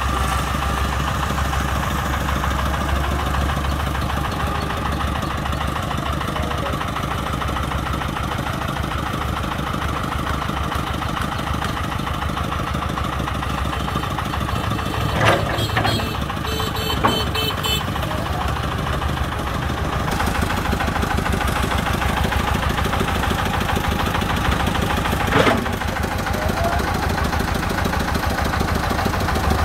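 Diesel engines running steadily at idle, from a công nông farm truck and the Komatsu PC100 excavator loading sand into its bed. A few sharp knocks cut in: two close together about halfway through and one more later.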